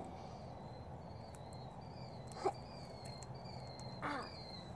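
Outdoor evening ambience: a small animal chirping, short high down-sloping notes repeating about twice a second, over a low steady hum. Two short sharp sounds come about two and a half and four seconds in.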